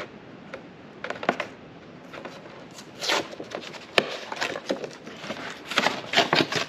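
Rigid plastic clamshell packaging of a new air filter being pried open and handled: scattered crackles and clicks, with one sharp snap about four seconds in and a quick run of crackles near the end.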